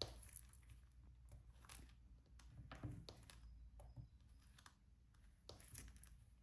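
Faint, irregular clicks and taps of diamond painting: a drill pen picking up small resin drills and pressing them onto the adhesive canvas.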